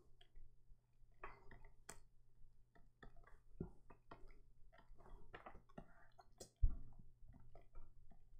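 Faint, irregular clicking and tapping of work at a computer desk, with one louder low thump about six and a half seconds in.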